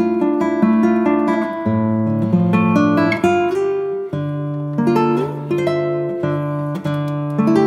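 Background music: plucked guitar notes in a steady run over sustained low bass notes.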